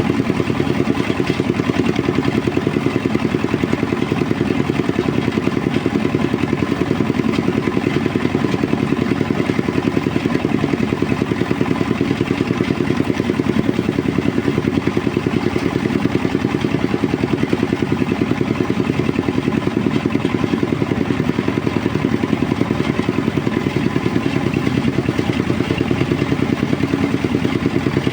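Engine-driven rice threshing machine running steadily at a constant speed.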